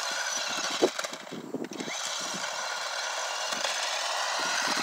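RC drift car's motor and drivetrain whining with several wavering pitches, easing off briefly about a second in. A single knock comes just before the dip.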